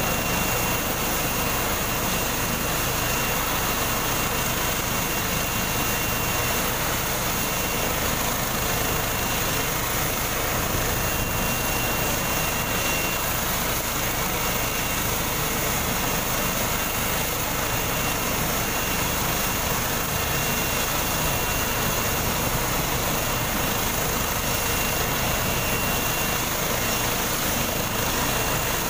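Eurocopter EC135-type helicopter running on the ground at idle: a steady turbine whine over constant rotor and engine noise.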